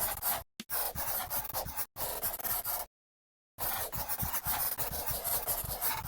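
Scratchy rubbing noise against a surface in four bursts, each about one to two seconds long, with abrupt dead-silent gaps between them.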